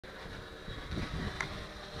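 Wind buffeting the microphone, with a faint steady high whine from a distant FPV racing quadcopter's motors and a single light click about one and a half seconds in.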